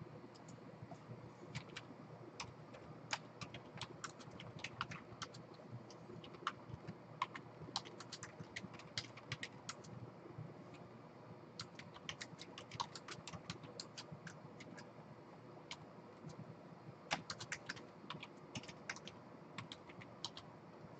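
Typing on a computer keyboard: several runs of quick keystrokes with short pauses between them.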